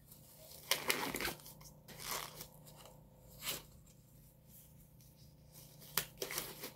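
Nitrile exam gloves being pulled on over the hands: several short rustles of the thin glove material, over a faint steady hum.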